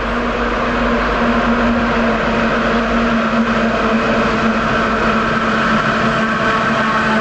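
Electric locomotive running through a station. Its steady hum and higher whine mix with the rumble of wheels on the rails, getting a little louder about a second in as it draws nearer.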